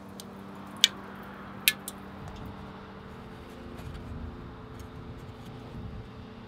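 Ceramic investment shell mold cracking as it cools around freshly poured bronze: two sharp, loud pings a little under a second apart, about a second in, over a steady low hum.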